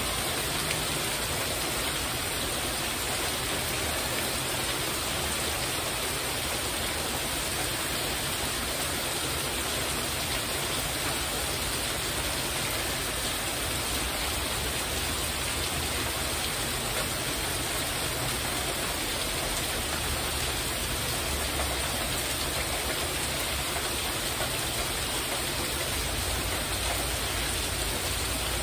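Heavy rain falling steadily on a porch roof and the yard around it: a constant, even hiss with no breaks.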